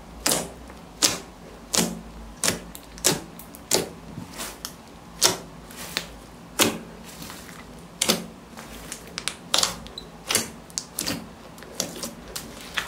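Thick clear glitter slime being pressed, folded and poked by hand, giving a string of sharp, irregular clicks and pops, about one or two a second, as trapped air bursts out of the slime.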